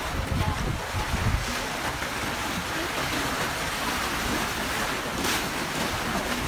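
Churning, rushing water of a rapids-style boat ride channel, with wind buffeting the microphone, strongest in the first second or so.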